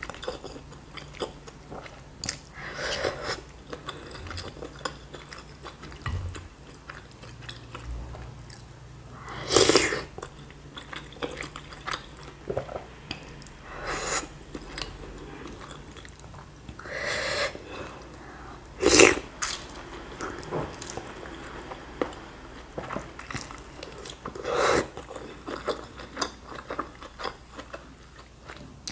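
Close-miked eating of bakso meatball soup: chewing of meatball and noodles, with a noodle slurp at the start and several louder mouth sounds spaced a few seconds apart.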